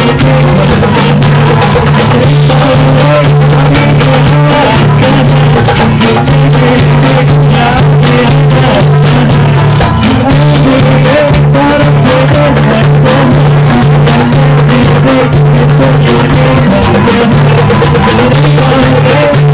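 Loud music with drums and shaker-like rattling percussion over a sustained low note.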